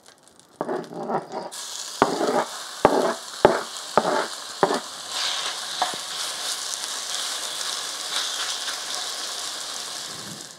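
Diced raw chicken going into a hot pan of coconut oil and vegetables and starting to sizzle, with rustling and a few sharp knocks between about two and four seconds in as the pieces are scraped in. A steady frying sizzle follows and grows stronger about halfway through.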